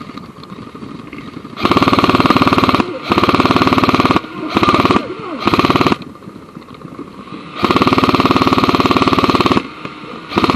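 Airsoft rifle firing on full auto in five bursts of rapid rattling shots, the longest about two seconds, close to the microphone.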